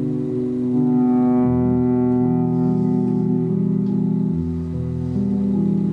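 Bass playing an instrumental passage of long held notes, several pitches sounding together like an organ and changing every second or so.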